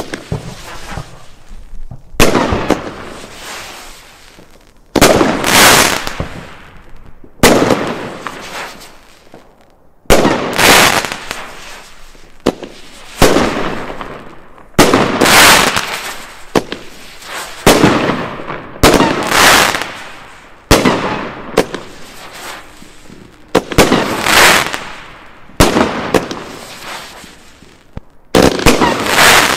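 A 30 mm, 16-shot Magnum 'Radiant Spirals' firework cake firing shot after shot, roughly one every two seconds. Each shot is a sudden launch followed by a fading hiss as its effect burns out.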